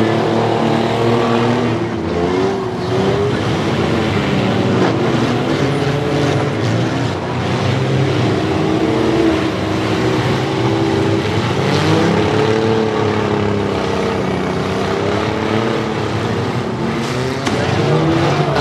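Several demolition derby minivans, trucks and SUVs with their engines revving hard together, pitch rising and falling as they drive and ram. Occasional sharp bangs of crumpling sheet metal are heard as the vehicles collide.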